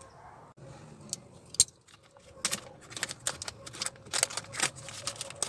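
Irregular sharp clicks and small rattles of metal and plastic parts being handled inside a car door, at the door handle and latch linkage: one click about a second and a half in, then a busy run of clicks from about halfway.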